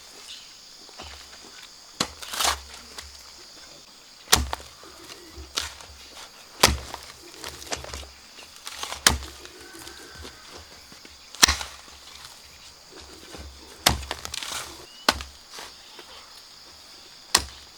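Repeated sharp chopping blows from a hand tool, about ten strikes spaced one to two and a half seconds apart.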